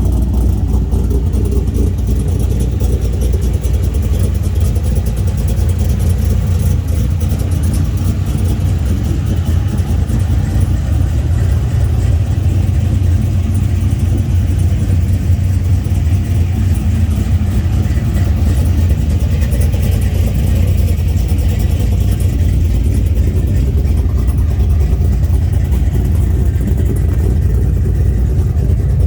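Pontiac Trans Am V8 engine running steadily, its sound heaviest in the low notes.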